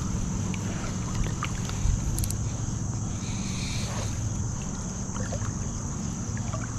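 River water flowing and lapping around a wading angler: a steady low rush with a constant high hiss above it and a few faint ticks.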